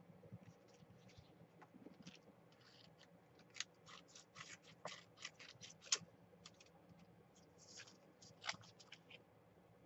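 Small scissors snipping through thin printed paper: a faint run of quick, short snips, busiest in the middle and again near the end.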